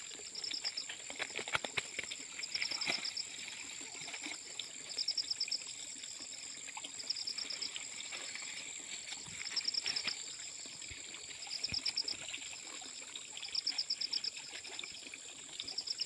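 Insects calling: a steady high-pitched drone with a short pulsed chirp repeating about every two seconds, over faint trickling and splashing of water as a man wades and gropes along a pond bank.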